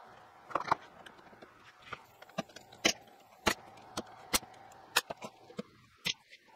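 Pin nailer firing pins into a freshly glued plywood cabinet joint: a string of sharp snaps, about ten, unevenly spaced.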